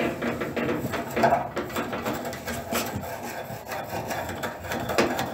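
Soft pencil lead scratching back and forth on the metal hinges of a gas stove's oven door in short, irregular strokes, rubbing graphite in to cure the hinges' squeak.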